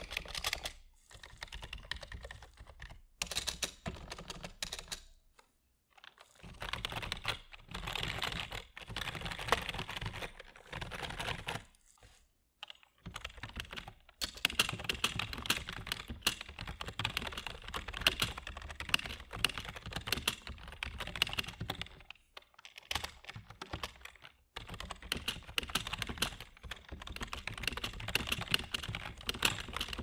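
IBM KB-7953 rubber-dome keyboard, still dirty and unlubricated: single presses on its stabilized keys, which are super loud, then fast typing in runs of key clatter broken by a few short pauses.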